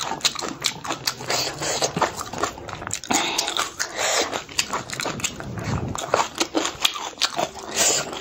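Close-miked chewing and lip-smacking while eating pork and rice, with many sharp wet mouth clicks and smacks.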